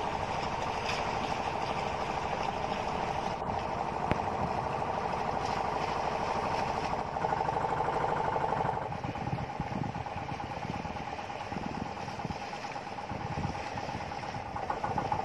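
Outrigger fishing boat's engine running steadily with an even, chugging pulse, a little louder for a couple of seconds around the middle.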